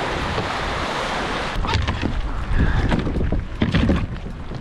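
Wind buffeting the microphone over choppy water around a kayak. From about a second and a half in come a low rumble and several sharp splashes and knocks as the paddle works.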